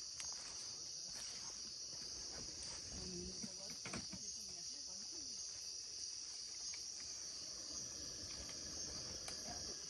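Steady, high-pitched chorus of crickets trilling without a break, with a few faint clicks underneath.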